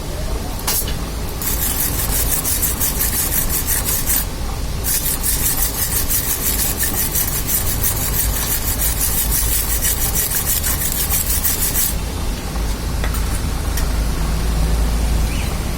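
Fast, evenly repeated scraping strokes on metal in two long runs, with a short break about four seconds in, over a steady low rumble.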